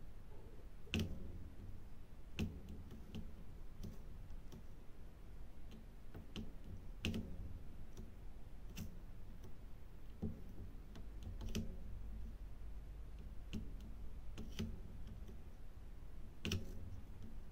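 Diamond-painting drill pen tapping small resin drills onto the sticky canvas and picking them up from the plastic tray: small, irregular clicks, about one a second, over a faint steady low hum.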